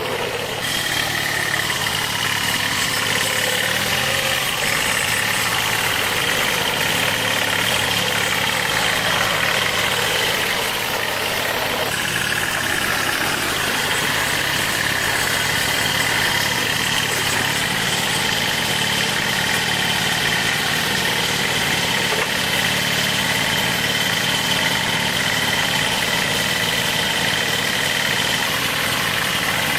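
An engine running steadily, with a constant mechanical hum and a high whine.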